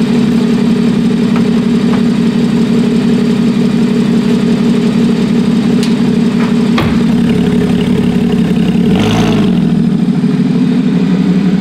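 Porsche 981 Cayman S's flat-six idling steadily through a newly fitted aftermarket Boreal exhaust. A single sharp knock comes about seven seconds in, and there is a brief low sweep in the note about nine seconds in.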